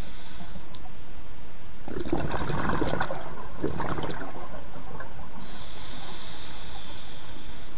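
Scuba diver's regulator breathing underwater: a crackling rush of exhaled bubbles for about two seconds, then a hissing in-breath through the regulator for about a second near the end, over a steady low underwater rumble.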